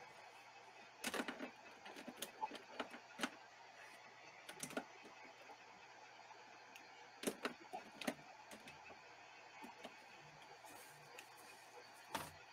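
Faint steady hum of a handheld heat gun drying paint on a mixed-media page, with scattered sharp clicks and light knocks, the loudest about a second in and near the end.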